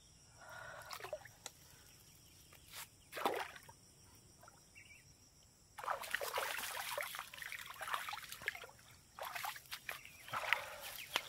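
Shallow swamp water sloshing and splashing as a person moves about in it, a few short swishes at first, then steady splashing from about halfway through.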